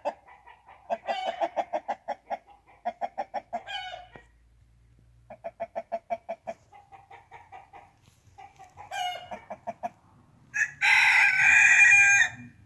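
Chickens clucking in several quick, evenly spaced runs, then near the end a rooster crows loudly, one long call of about a second and a half.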